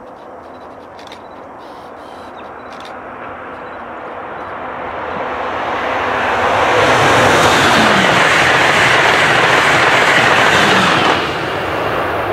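Amtrak Acela Express electric high-speed trainset approaching and passing at speed. Its rushing noise swells over several seconds, holds loud for about four seconds, then drops off sharply as the train goes by.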